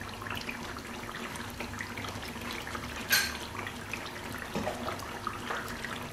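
Thick mutton curry simmering in a pan: soft, steady bubbling with small pops, and one louder pop about three seconds in.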